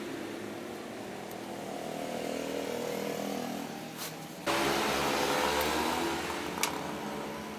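A small electric motor running, its pitch shifting with speed, jumping louder and higher about halfway through, with a couple of sharp clicks.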